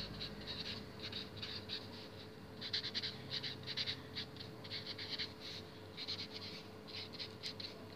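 Felt-tip marker writing on paper: a run of short strokes in irregular clusters as the words are written.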